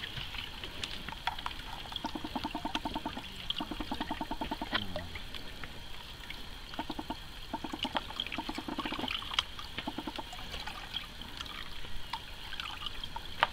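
Water sloshing and trickling as a plastic gold pan of sand and gravel is dipped and worked in a bucket of muddy water, washing the sand off. Several short runs of quick, even pulsing come and go.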